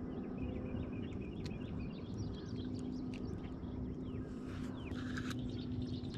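Several birds chirping and singing, many short calls overlapping, over a steady low hum and a low rushing background noise.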